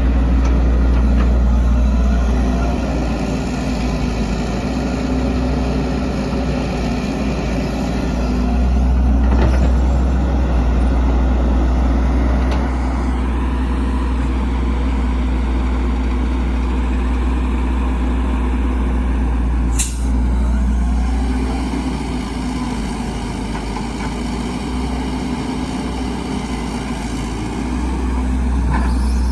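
Heavy diesel engines of an excavator and dump trucks running steadily with a deep rumble, and one sharp click about twenty seconds in.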